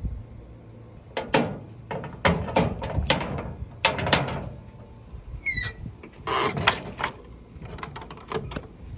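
A run of sharp mechanical clicks and clatters, like gear being handled, with a short rising chirp about five and a half seconds in.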